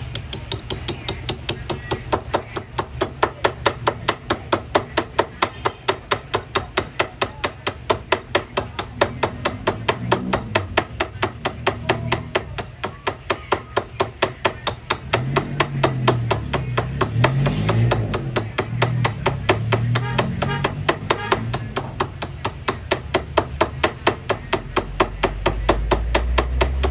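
Goldsmith's hammer beating gold against metal in a fast, even run of blows, each with a short metallic ring.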